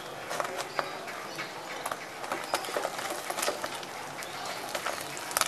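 Egg omelette frying in hot oil in a pan: a steady sizzle with frequent sharp crackles and pops.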